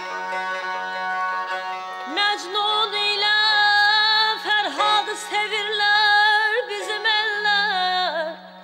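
Azerbaijani mugham performed by a trio: a woman's voice enters about two seconds in, singing with quick trilling throat ornaments (tahrir) and bending pitch, over held notes and a steady drone from the tar and kamancha.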